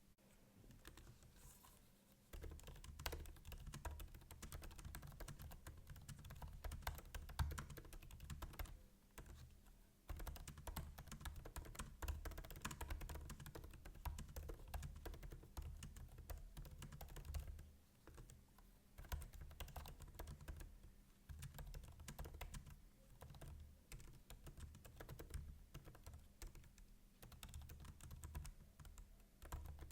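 Fast, continuous typing on a MacBook's built-in laptop keyboard: a dense run of quiet key clicks with soft low thumps, pausing briefly about ten seconds in and again near eighteen seconds.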